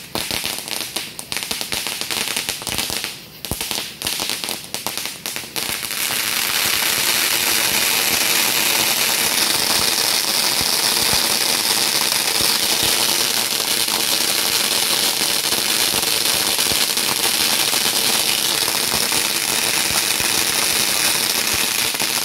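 Ground fountain firework: irregular crackling pops for about the first six seconds, then a steady, louder hissing spray of sparks with crackle running through it.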